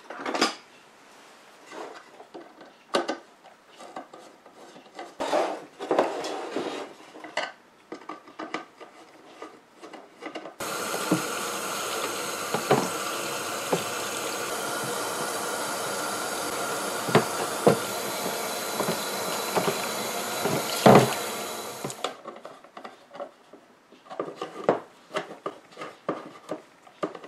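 Small clicks, taps and rubs of the meter being handled and taken apart on the bench. About ten seconds in, a steady loud hiss begins, runs about eleven seconds with a few sharp knocks over it, and cuts off abruptly, followed by more light clicks.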